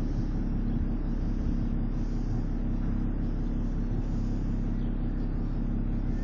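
A fishing boat's inboard engine idling steadily, heard on board as an even low drone.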